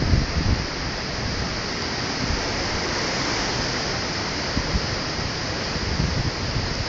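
Steady rush of strong wind, with gusts buffeting the phone's microphone as a rough low rumble.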